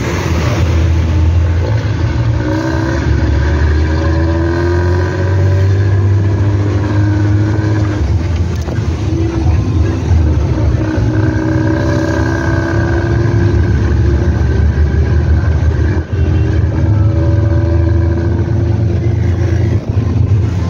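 Nissan Diesel CB87L bus engine and its rough "ngorok" (snoring) exhaust, heard from the back seat inside the cabin, running under load with a heavy low rumble. The engine pitch rises and falls several times, with a brief dip in loudness twice near the end.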